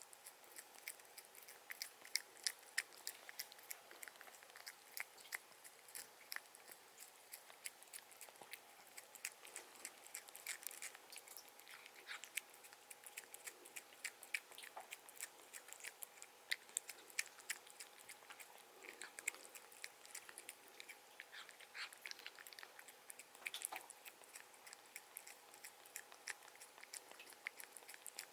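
A cat chewing and crunching food: a long run of small, crisp clicks.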